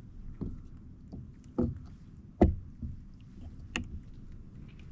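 Sharp knocks and clunks on a kayak hull, four in a few seconds with the third the loudest, as a freshly caught fish is handled aboard.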